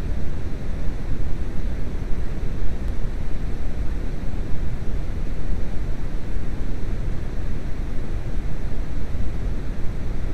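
Steady artificial noise, heaviest in the bass and thinning out in the treble, laid over the soundtrack to mask shop radio music.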